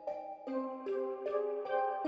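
Background music: a light melody of plucked or struck notes, a new note about every half second.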